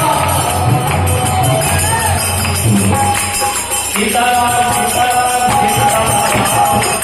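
Kirtan music: a harmonium plays held melody notes over a steady drum beat and constant jingling hand percussion.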